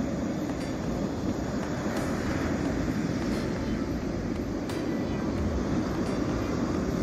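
Ocean surf breaking and washing up the beach: a steady rushing noise with no let-up.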